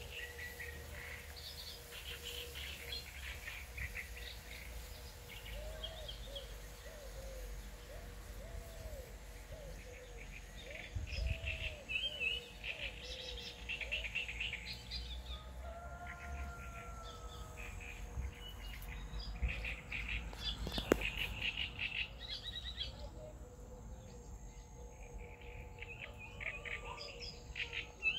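Small birds chirping and twittering, with a run of short, curving lower calls early on and one sharp click about three-quarters of the way through.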